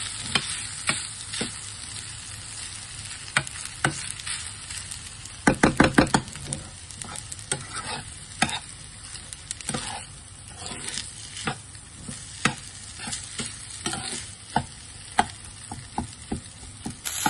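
Fried rice sizzling in a frying pan while a slotted spatula stirs and turns it, with irregular clicks and scrapes of the spatula against the pan. About five and a half seconds in comes a quick run of about eight sharp knocks, the loudest part.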